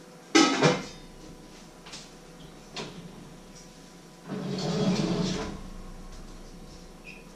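Kitchen handling sounds: a loud, sharp double knock about half a second in, then the oven door being pulled open, a scraping rattle lasting over a second.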